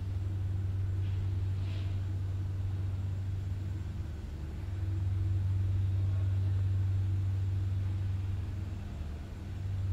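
Steady low hum with a few faint higher tones over it. It swells louder about halfway through, then dips near the end. A brief faint hiss comes about a second in.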